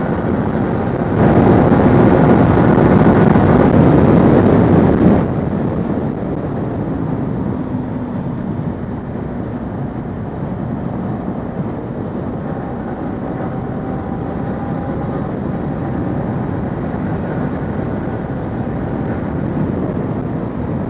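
Motorcycle being ridden at road speed: the engine runs steadily under a rush of wind noise on the rider's microphone. The rush is louder for about four seconds near the start, then settles.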